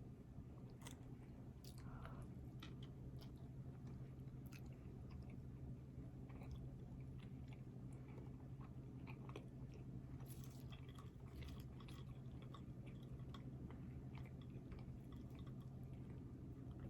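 A person chewing food close to the microphone: soft wet mouth clicks and small crunches scattered all through, over a steady low hum.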